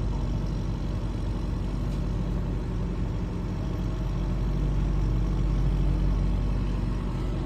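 A heavy engine running steadily with a deep, even drone, swelling slightly a few seconds in.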